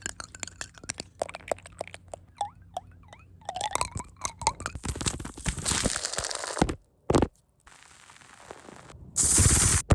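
Rapid close-up ASMR trigger sounds: quick sharp taps and clicks, then longer crunchy, scratchy stretches of noise, with a short break partway through.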